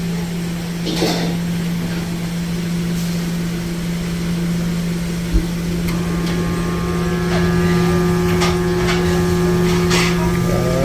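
Steady electrical hum from a Hoshizaki ice machine after it is switched on. About six seconds in, a higher hum with several steady tones joins and grows a little louder, with a few sharp clicks. This is its motor energized but not turning: seized.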